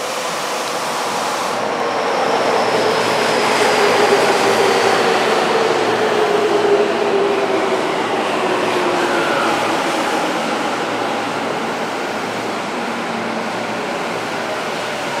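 Tokyu 5050 series 4000-subseries commuter train in its yellow Shibuya Hikarie livery pulling in along the platform and braking to a stop. The traction motors' whine falls steadily in pitch as it slows, over a steady rumble of wheels on rail.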